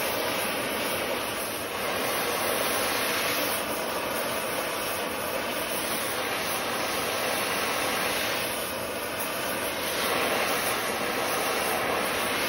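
Oxy-fuel torch flame hissing steadily as it preheats a cast iron 14-bolt axle housing before welding; the hiss swells slightly a couple of times.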